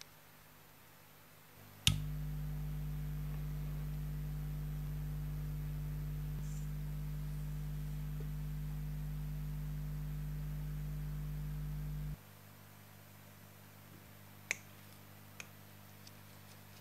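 Sony TC-357A reel-to-reel tape recorder powered up with a click about two seconds in: its motor gives a steady low hum that cuts off abruptly about ten seconds later. A few small clicks follow near the end.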